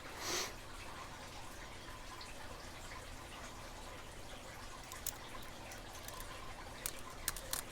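Faint clicking and scratching of a lock pick and tension wrench working inside an old disc padlock. The sharper clicks come from about five seconds in and grow more frequent near the end.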